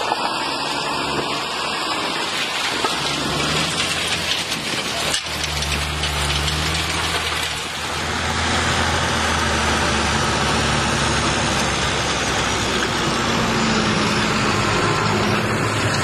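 John Deere tractor's diesel engine running steadily; it grows louder about eight seconds in.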